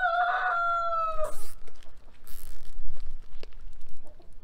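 A rooster crowing, one long held note that falls slightly and ends about a second in. After it, a plastic bag crinkles and small clicks follow as a zip tie is fastened around it.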